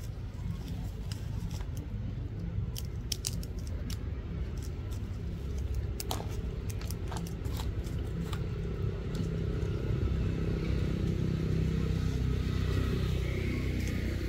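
Low engine hum of a passing vehicle, growing louder through the second half, with scattered sharp clicks and crackles of dry leaves being handled, mostly in the first half.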